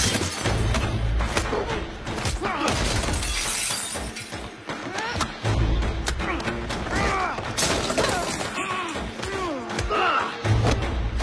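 Movie fight sound effects over a dramatic music score: glass shattering, sharp impacts of blows and three deep, heavy hits spread through the fight.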